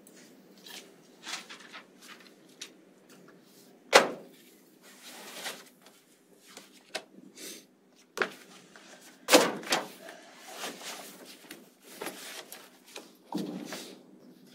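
Lecture-room noise while a class writes: scattered knocks, clicks and rustles, the loudest a sharp knock about four seconds in and another about nine seconds in.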